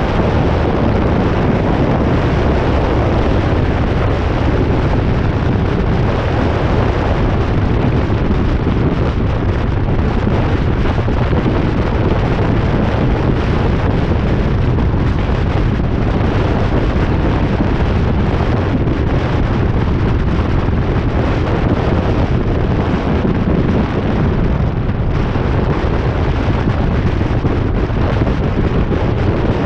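Wind buffeting a roof-mounted camera's microphone on a moving car, over steady road noise: a loud, unbroken low rumble.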